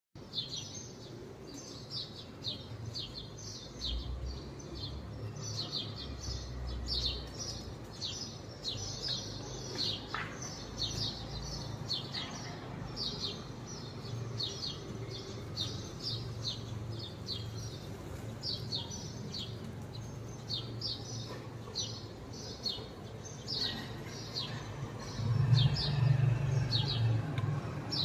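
Small birds chirping outdoors: short, high chirps repeating a few times a second, with no let-up. Underneath runs a low rumble that grows loudest a few seconds before the end.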